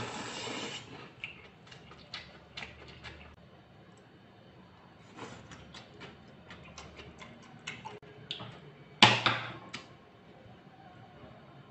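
Scattered light clicks and taps of utensils on a wooden cutting board, with one louder knock about nine seconds in.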